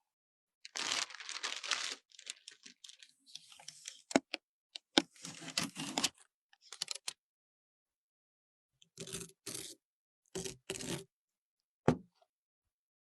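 Packaging being torn open and handled: a long tearing, crinkling noise at first, then scattered sharp clicks and short rustles, with a pause of over a second midway.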